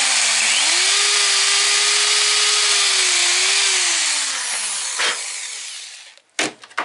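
Power drill boring a hole down through the wooden baseboard beside the rail. The motor speeds up within the first second and runs steadily with the hiss of the bit cutting wood, then winds down over the last couple of seconds and stops.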